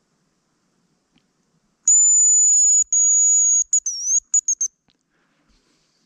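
Hazel grouse decoy whistle blown in the male's call: two long, very high, thin whistled notes, the second falling slightly, then a few short quick notes with a dip. It starts about two seconds in and lasts about three seconds.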